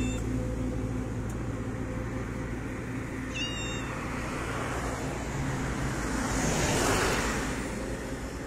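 A street cat gives one short, high mew about three and a half seconds in, over a steady low hum of road traffic. A rushing noise swells and fades near seven seconds in.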